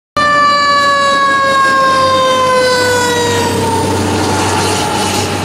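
Fire engine siren sounding one long tone, rich in overtones, that falls slowly in pitch, with the fire engine's low engine rumble underneath. It cuts in abruptly.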